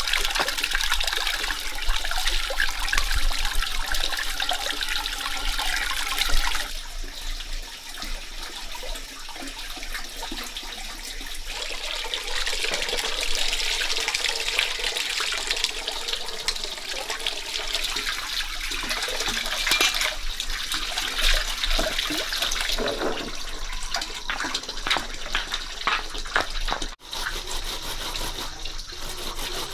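Running, splashing water, changing character about six and a half seconds in, with scattered light clicks and rubbing in the later part.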